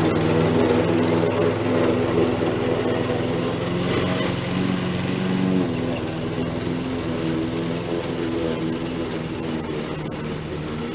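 Gas lawn mower engine running steadily while cutting grass, its pitch shifting slightly a few times and growing a little fainter toward the end.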